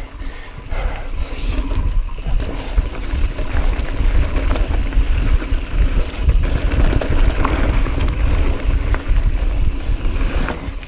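Wind buffeting the camera microphone and knobby tyres rolling fast over loose, dusty dirt as a Commencal Meta V4 mountain bike descends a trail, with many small clicks and rattles from the bike over bumps. It gets louder about a second in and then runs on steadily.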